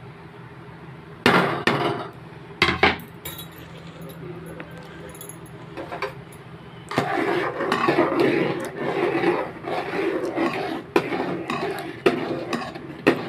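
A metal spoon knocking sharply against a metal cooking pot twice, then a longer stretch of stirring and scraping in the pot of milk and vermicelli.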